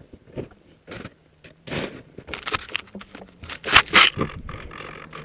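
Boots crunching through snow as someone walks up to the upturned RC plane, followed by scraping and crunching as they handle the plane close to the onboard camera. The loudest bursts come about four seconds in.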